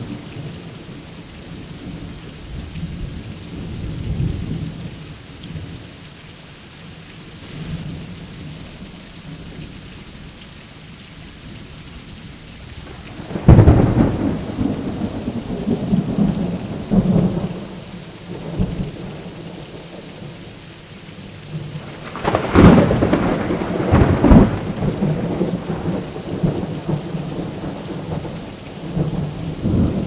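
Thunderstorm: steady rain with thunder. A sudden loud crack about halfway through rumbles on for several seconds, and two more loud cracks come close together a little later.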